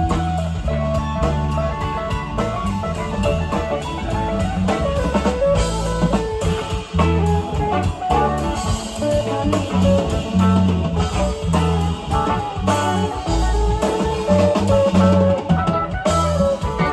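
Live rock band playing an instrumental jam: an electric guitar lead over bass guitar and drum kit.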